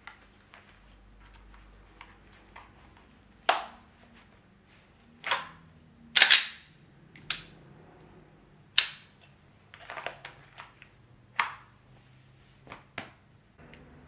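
About ten sharp plastic-and-metal snaps and clicks, spread unevenly, as everyday-carry gear is handled: a pistol and spare magazine in a hard-shell appendix holster being seated and adjusted, then a flashlight.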